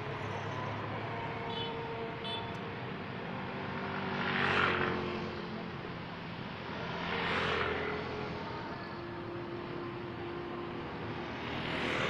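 Road traffic: a steady engine hum, with vehicles passing by three times, each one a rise and fall of engine and tyre noise.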